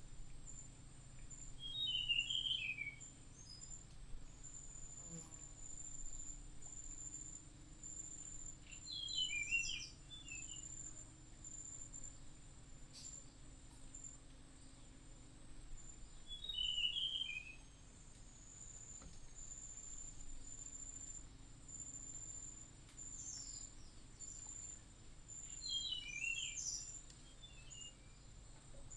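An insect trilling steadily at a high pitch, with a bird giving short chirping calls four times, several seconds apart.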